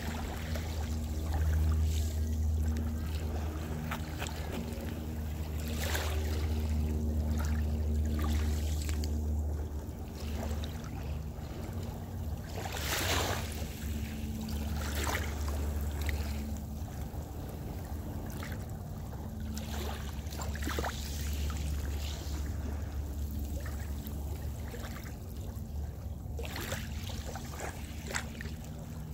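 Small waves washing up over a concrete seawall, with the biggest splash about thirteen seconds in, over a steady low rumble with a faint droning hum.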